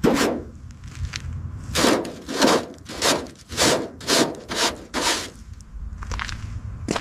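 Repeated rasping strokes of a hand tool scraping, sanding or filing a surface, about two a second for several seconds, after a single harsh stroke at the start.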